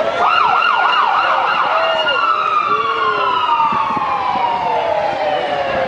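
Vehicle siren: a quick warbling yelp for about a second, then one long wail that slides steadily down in pitch.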